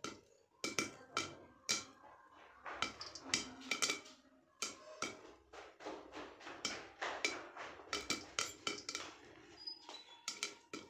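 Popcorn kernels popping in a covered steel kadhai with a glass lid, the popped corn knocking against the lid and pan in irregular pops, several a second.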